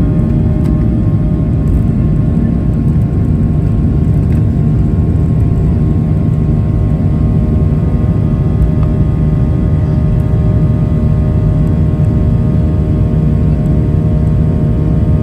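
Boeing 737-800's CFM56-7B turbofan engines at takeoff thrust, heard from inside the cabin beside the engine: a loud, steady rumble with a constant hum of engine tones.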